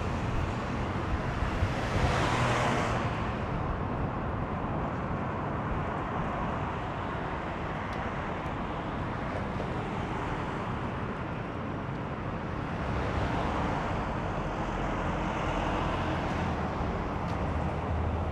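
Road traffic: a car passes close about two seconds in, and another vehicle swells past about 13 to 16 seconds in, over a steady low rumble.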